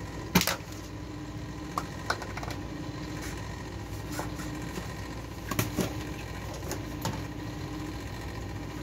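Steel spoon clinking a few times against a ceramic serving dish while stirring seasoned whisked yogurt, the sharpest clink about half a second in, over a steady low hum.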